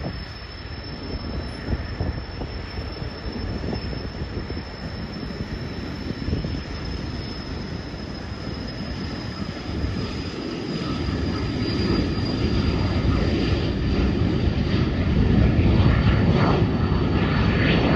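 Cessna Citation 525 business jet's twin turbofan engines at takeoff: a steady high whine that slides slightly lower in pitch over a broad rumble. The rumble grows louder through the second half.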